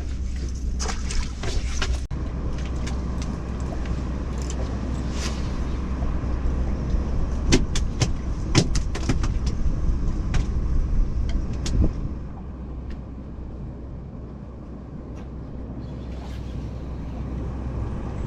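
A boat motor runs steadily as a low hum. Sharp knocks and clatter sound through the first twelve seconds or so, then it goes quieter.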